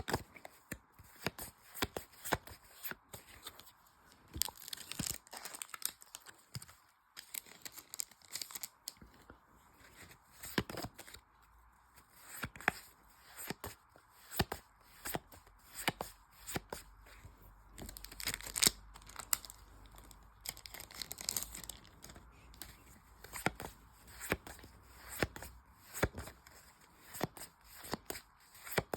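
Foil Pokémon card booster pack wrappers crinkling and tearing open, a string of short crackles and clicks throughout, the loudest about eighteen seconds in.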